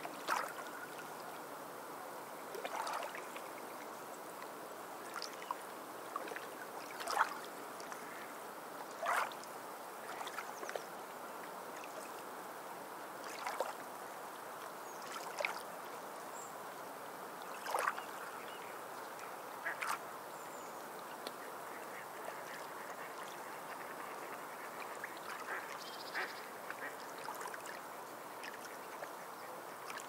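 Sea waves washing over rocks in a steady rush, with short sea bird calls breaking through about every two seconds.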